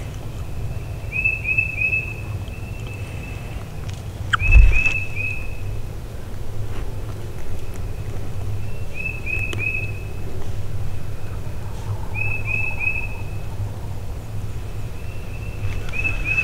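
A songbird singing the same short whistled phrase over and over, about every three to four seconds: a few quick clipped notes running into a held high note. A single dull thump sounds about four and a half seconds in.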